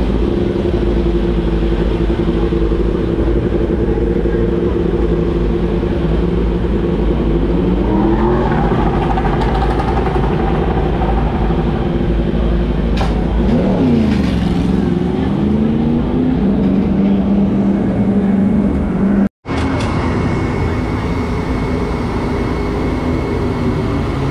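Yamaha YZF-R1 superbike's inline-four engine running in the pits, idling steadily, its pitch rising about a third of the way in and dipping then climbing again around the middle. The sound breaks off for an instant about three-quarters through, after which an engine runs on with a high steady whine.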